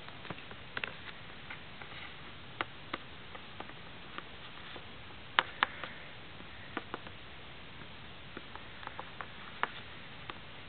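Small, irregular clicks and taps from fingers handling a small polymer clay figurine and shifting it on a table, over a steady hiss; a sharper double tap comes about halfway through.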